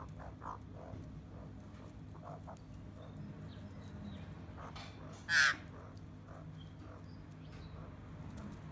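Australian magpie giving a single short, harsh call a little over five seconds in, just after a fainter call, over a steady low background hum.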